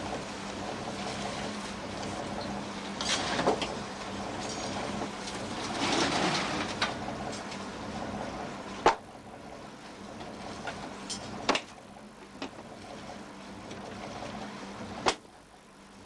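Sharp knocks and clatter of gear being handled on a fishing boat's deck, three loud single knocks in the second half, over a steady low hum that eases about halfway through.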